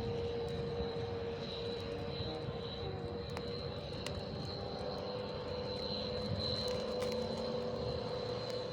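Strong wind buffeting the microphone as a steady low rumble, with a steady high whistle and a lower steady hum running through it.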